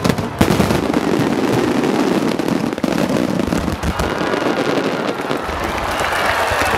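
Aerial firework shells bursting over a large display. A sharp loud report comes right at the start, then booming and dense crackling from the bursts carry on throughout.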